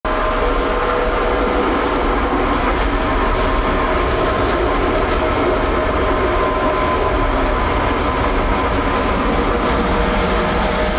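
Oslo tram running on its rails: a steady rumble of wheels on track, with several steady whining tones over it.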